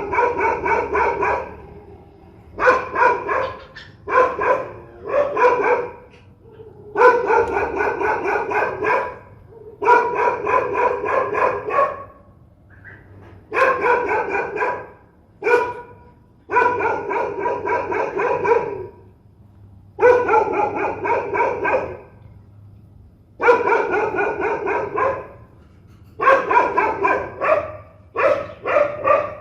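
A dog barking fiercely in quick, repeated runs of barks, each run lasting about one to two and a half seconds, with short pauses of about a second between them.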